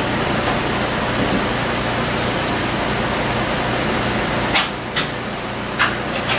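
Steady shop hiss with a low hum, and a few sharp clicks in the second half as small parts are handled at the workbench.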